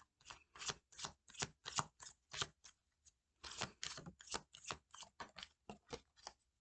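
A deck of tarot cards being shuffled by hand: a quick run of soft card flicks, about three or four a second, with a brief pause about three seconds in.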